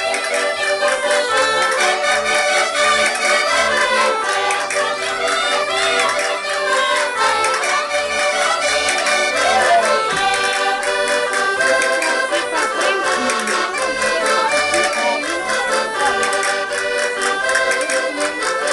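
Accordion playing a traditional Portuguese folk tune, with a steady bass beat under the melody.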